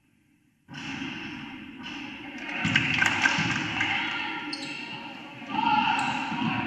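Basketball game sounds in a gym: a ball bouncing on the court amid crowd voices and shouts, starting abruptly under a second in.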